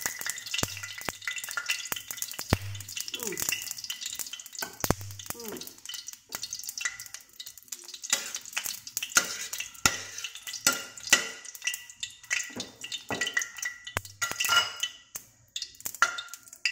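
Garlic cloves frying in hot pork lard in a stainless steel wok, sizzling with many sharp crackles and spatters, while a metal ladle stirs them against the pan.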